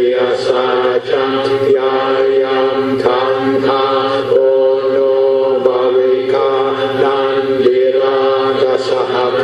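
Buddhist chanting: a steady, nearly monotone recitation held on one or two pitches, with brief breaks between phrases.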